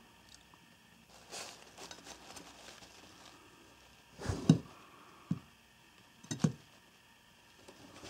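Handling noise as a fixed-blade knife is wiped with a paper tissue: soft paper rustling, then a few dull thumps and knocks, the loudest a double thump about halfway through.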